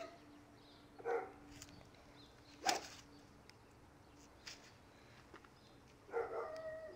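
One sharp crack of a golf club strike about two and a half seconds in. Short pitched sounds, like a dog's bark, come about a second in and again near the end.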